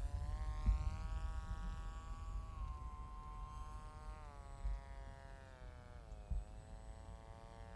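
Hacker A20-50S brushless motor spinning an APC 7x6 slow-flyer prop on an RC flying wing in flight: a steady buzzing whine that steps down in pitch a little past halfway and again about six seconds in. A low rumble of wind on the microphone runs underneath.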